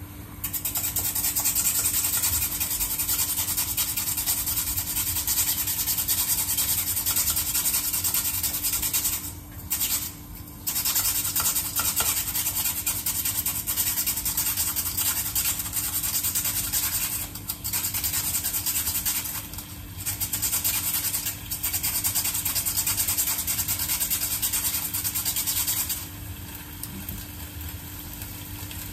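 A peeled potato being shredded on a julienne slicer: fast rasping strokes of the potato across the blades, with a few short pauses, stopping about 26 seconds in.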